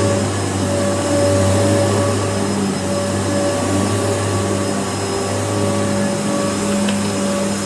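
Kenmore upright vacuum cleaner running steadily, a continuous motor drone with a steady hum.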